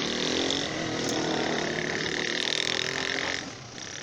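A motor running with a steady pitched hum that rises slightly at first, cutting off about three and a half seconds in.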